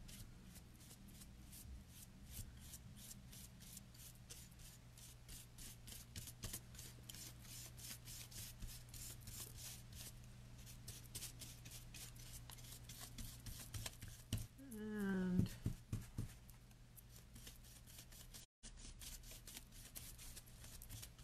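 Paintbrush scratching across a flat cut-out in quick, repeated dry-brush strokes, several a second, laying on chalk paint. About fifteen seconds in a brief vocal sound breaks in.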